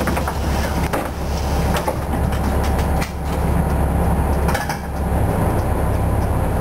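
1972 Flxible New Look transit bus's diesel engine idling, heard from inside the bus as a steady low drone. A few sharp knocks and rattles come from the bus body, about once a second or so.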